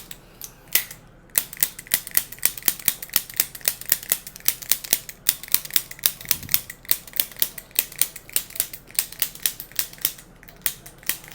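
Rapid, regular mechanical clicking, about six clicks a second, broken by a few brief pauses.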